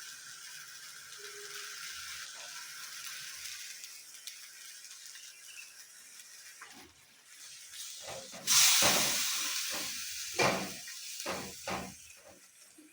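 Pan of coconut-milk sauce sizzling steadily on the stove; about eight seconds in the sizzling surges suddenly louder, followed by several sharp knocks.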